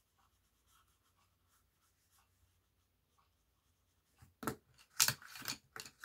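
Faint scratching of a colouring tip on paper, then, about four seconds in, a quick run of loud clicks and clatters as pencils are picked up and knock against each other on the desk.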